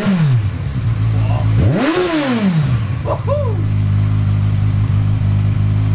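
Kawasaki Z1000 inline-four idling through a new aftermarket exhaust, with its dB killers still fitted. The rider blips the throttle three times: one rev falls away at the start, the biggest comes about two seconds in, and a short one follows about three seconds in, each dropping back to idle.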